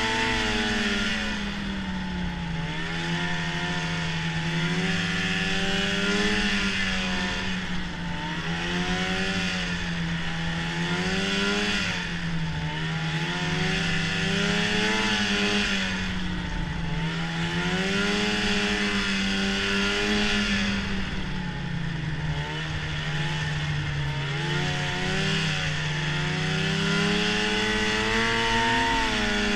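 Arctic Cat snowmobile engine running under way, its pitch rising and falling every few seconds as the throttle is worked, over a steady rushing hiss.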